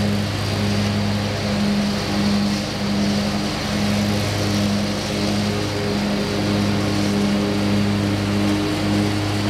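Walk-behind commercial lawn mower's engine running steadily while mowing, its hum wavering slightly in strength.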